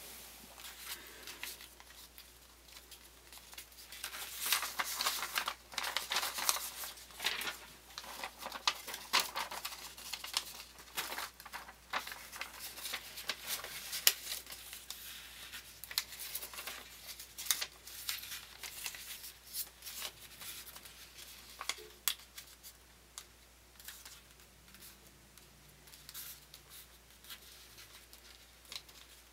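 Paper being folded by hand: rustling and crinkling with irregular sharp clicks as creases are pressed down, busiest from about four to ten seconds in.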